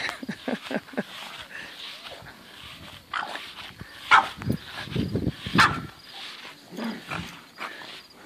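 Two dogs, a Keeshond/Shepherd mix and a small Pug mix, vocalizing in play as they tug at a plush toy, with a string of short sounds, the loudest about four and five and a half seconds in.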